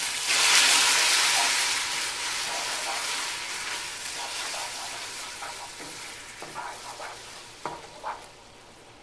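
Hot caramelised sugar in a non-stick frying pan sizzling after a little water is added, being stirred with a wooden spoon. The sizzle jumps up about a quarter second in and dies away gradually, with two light knocks near the end.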